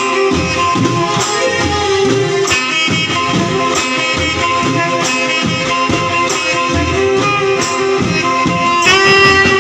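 A live banjo party band playing: a keyboard melody of held notes over drum kit and percussion with a heavy bass beat, amplified through horn loudspeakers. The music swells a little louder about nine seconds in.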